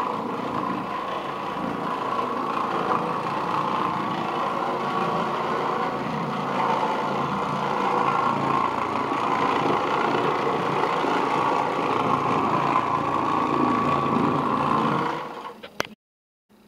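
Oreck Orbiter orbital floor machine running steadily, its motor driving a bonnet pad that scrubs the carpet; the sound stops near the end.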